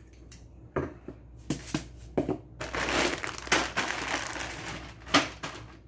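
Plastic food packaging crinkling and rustling as it is handled: a few separate clicks and knocks in the first two seconds, then a dense stretch of crinkling from about two and a half seconds in.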